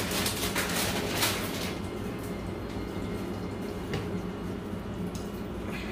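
Water running from a kitchen tap for about a second and a half, then shut off, leaving a steady low hum.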